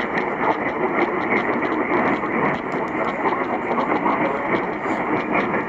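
Steady radio static: a loud hiss with irregular crackles and no clear voice or tone.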